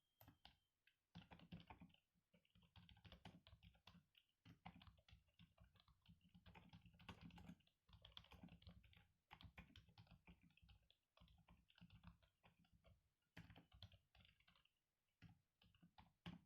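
Typing on an HP 350 compact Bluetooth keyboard: quiet, rapid key clicks in runs, broken by several short pauses.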